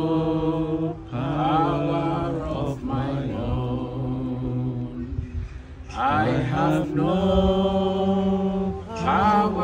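Unaccompanied singing of a slow worship chorus, led by a man's voice, with long held notes and short breaths between phrases.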